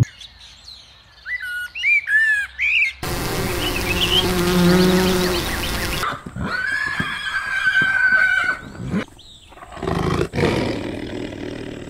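A run of separate animal recordings: short rising and falling bird calls for the pigeons over the first few seconds, then a horse whinnying in one long wavering call, then a tiger roaring about ten seconds in.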